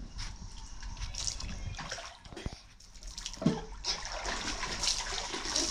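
Water splashing and sloshing in an inflatable paddling pool as a child swims through it and surfaces, the splashing growing louder from about four seconds in.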